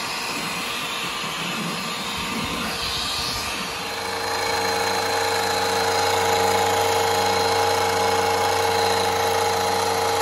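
Hoover UH72600 upright vacuum running with its brush-roll cover off, motor and belt-driven brush roll spinning. About four seconds in it grows a little louder and settles into a steady hum with a higher whine. The owner suspects a stretched, worn belt that slips and hits a bar.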